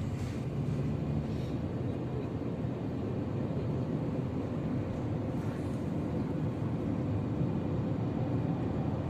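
Car driving along a road, heard from inside the cabin: a steady low rumble of engine and tyres on the road surface.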